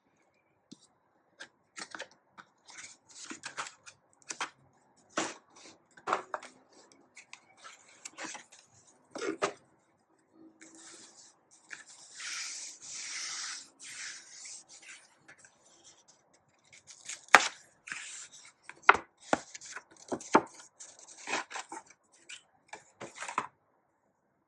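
Product packaging being opened and handled by hand: a string of rustles, scrapes and small knocks, with a longer rustle about halfway through.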